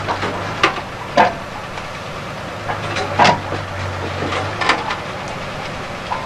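Heavy machinery with a low steady hum and irregular metal clanks and knocks. The hum drops out about two-thirds of the way through.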